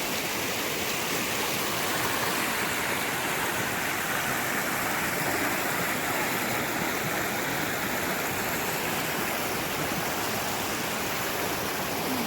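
Creek water rushing close by: a steady, unbroken wash of noise.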